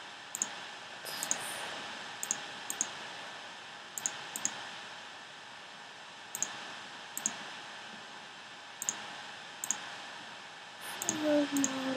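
Computer mouse clicks, single and in quick press-and-release pairs, scattered irregularly over a steady background hiss as dropdown menu options are selected.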